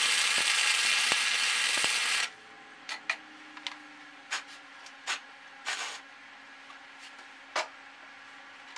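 Welding arc crackling and hissing steadily for about two seconds as a nut is welded onto all-thread, then cutting off. After it a faint steady hum with scattered light metal clicks and taps.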